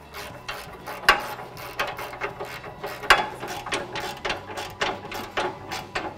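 Hand ratchet with a 14 mm socket clicking in short irregular strokes, a few clicks a second, as it runs new locking nuts onto the exhaust pipe's flange studs; a couple of louder knocks stand out about one and three seconds in.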